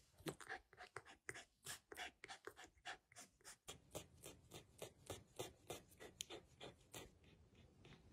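Faint, quick run of soft clicks or scratchy ticks, about four to five a second, with a low rumble added from about halfway through.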